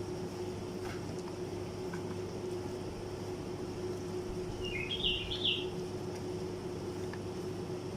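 A short burst of bird chirps about five seconds in, over a steady droning hum like an air conditioner.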